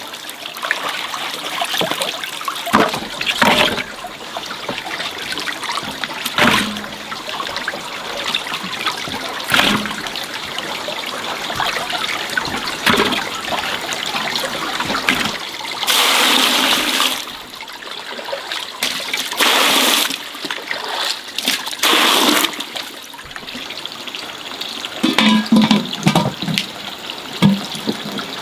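Water trickling and splashing, with a few louder gushes of pouring or sloshing water around the middle and a cluster of small splashes near the end.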